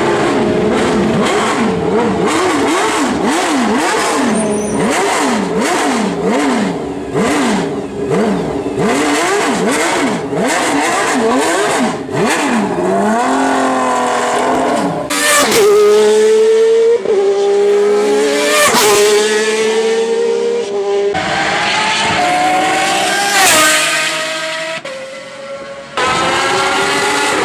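Pagani Zonda Cinque's Mercedes-AMG V12 revved while stationary: a run of quick throttle blips, the pitch rising and falling about twice a second, then longer held revs at a higher pitch. The sound breaks off abruptly a few times.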